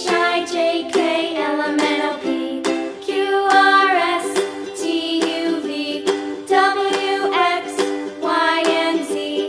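Background music: a light tune with plucked-string accompaniment and a sung or sung-like melody line.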